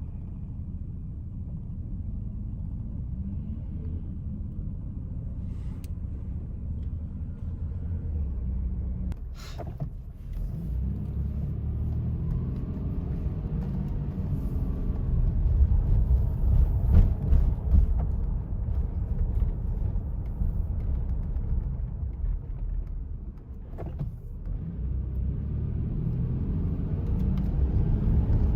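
Low, uneven rumbling noise that swells louder a little past halfway, with a couple of faint clicks.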